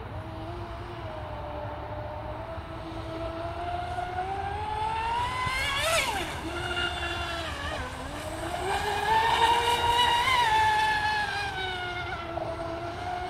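Brushless electric inboard motor (MBP 4055, 1740KV) of a radio-controlled scale F1 tunnel boat whining at speed. Its pitch climbs steadily to about halfway, dips briefly, then climbs again and is loudest past the middle, easing off near the end as the boat is throttled and steered around the lake.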